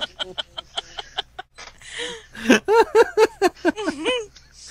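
A man laughing: a quick run of short breathy snickers, then a burst of louder voiced "ha-ha" laughs about two and a half seconds in.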